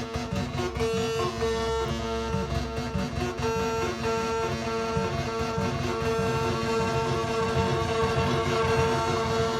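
Make Noise DPO analog oscillator playing a sequenced, repeating pattern of pitched synth notes through a Make Noise Echophon delay, the echoes layering over the notes.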